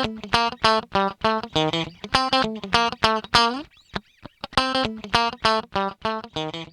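Intro music: a guitar riff of quick plucked notes, about four or five a second, with a brief break near the middle.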